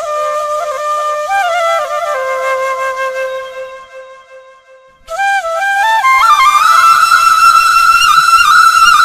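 Bansuri (bamboo flute) playing a slow, ornamented melody. The first phrase sinks and fades out about four seconds in. A louder, higher phrase enters about five seconds in and settles on a long held note.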